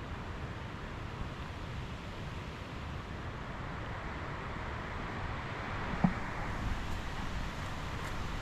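Steady rushing of water outdoors, with wind buffeting the microphone underneath, and a single sharp knock about six seconds in.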